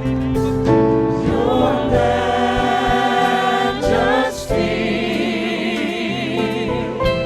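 Gospel music in a church: a choir or congregation singing, with sustained, wavering vocal notes over instrumental accompaniment.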